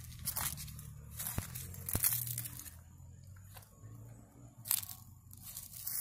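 Footsteps crunching irregularly through dry fallen leaves on a lawn, with two sharp knocks about one and a half and two seconds in.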